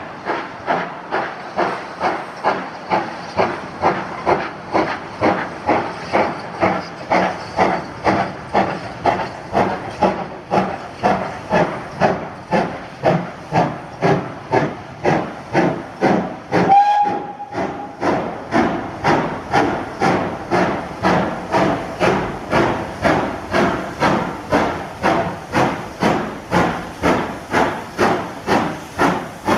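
Steam locomotive working, its exhaust beating in an even rhythm of about two chuffs a second. A short whistle blast sounds about seventeen seconds in.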